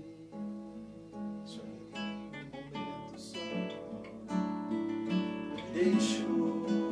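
Acoustic guitar playing a chordal introduction to a song, with picked notes that grow louder about four seconds in and again near the end.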